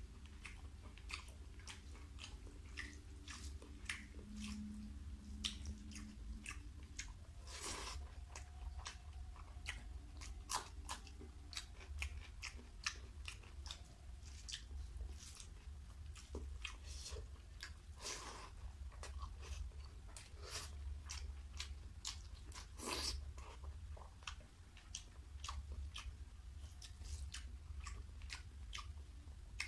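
Close-miked chewing and biting of a man eating rice and curry by hand, with frequent wet mouth clicks through the whole stretch. A steady low hum sits underneath.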